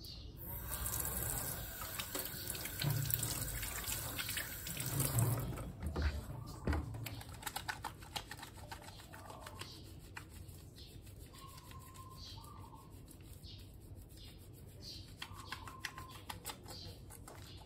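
Kitchen tap running into a stainless-steel sink, the water splashing on the steel, then shut off about seven seconds in. Afterwards, quieter wet rubbing of hands being lathered with soap.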